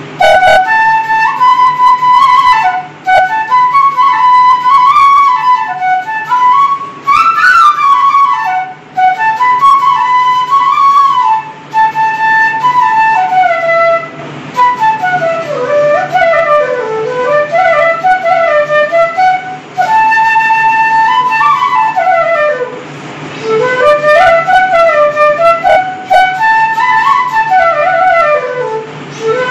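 Background music: a flute playing a winding, ornamented melody over a steady low drone.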